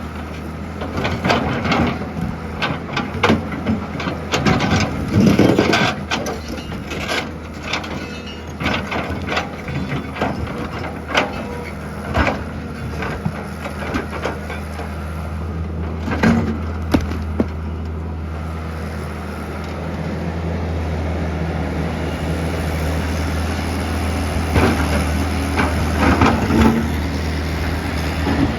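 A machine running with a steady low hum, with many clattering knocks through the first half and another cluster near the end.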